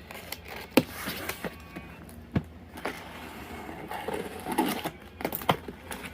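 Laptop packaging being handled and opened: scattered knocks and clicks with rustling of the cardboard and wrapping, busiest around the fourth and fifth seconds.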